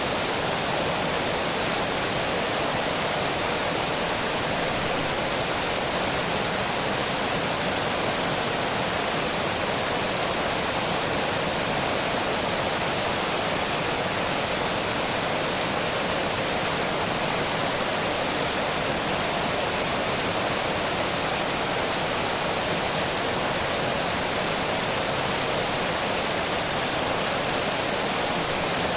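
Water pouring over a small dam, a steady, unbroken rush of falling water.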